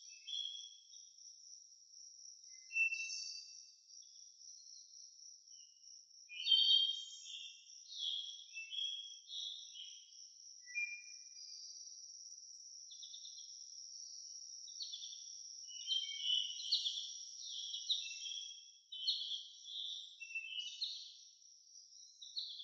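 Birds chirping and calling in short bursts over a steady high-pitched insect trill.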